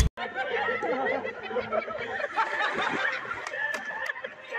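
A group of people laughing and chattering together.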